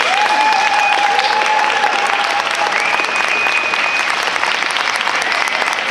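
Audience applauding steadily, with a few long, level high-pitched tones sounding over the clapping.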